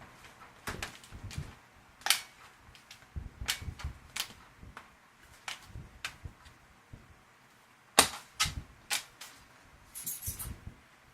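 Scattered sharp clicks and knocks as a Lenovo ThinkPad P50 laptop is handled and its battery is unlatched and taken out; the loudest knock comes about eight seconds in, and a short scraping hiss follows near the end.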